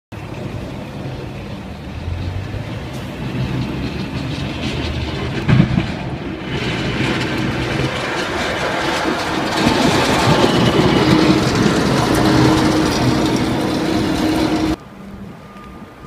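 Heavy diesel traffic on a slushy street: a city bus engine running as it pulls away, then a snowplow truck passing with its blade down, scraping and pushing slush, growing louder before cutting off suddenly near the end. A short knock about five and a half seconds in.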